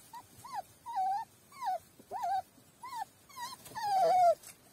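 A young puppy whimpering: a string of about eight short, high whines, the last one longer and falling in pitch.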